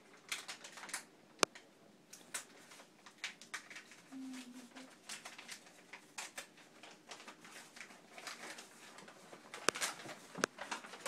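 Parchment paper crinkling and crackling with irregular small clicks as a wax-sealed note is picked open and unfolded by hand, with sharper snaps about a second and a half in and near the end.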